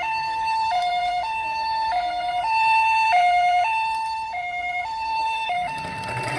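Toy ambulance's electronic siren sounding the two-tone hi-lo 'pee-po' pattern, alternating high and low about every half second. It stops near the end, when a noisy rumble starts.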